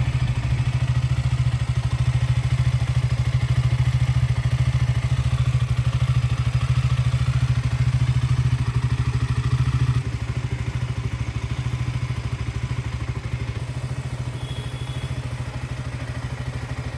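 KTM Duke 200's single-cylinder engine idling steadily with no throttle, running the engine flush through the oil before it is drained. It gets a little quieter about ten seconds in.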